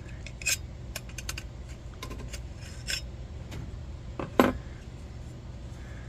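Light metal clinks and scrapes of a wrench working on a Coleman 200A lantern's burner-cap fitting and being handled: a scatter of short clinks, the loudest about four and a half seconds in.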